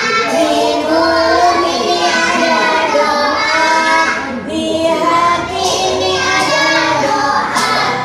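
Young children singing a song together, with long held notes.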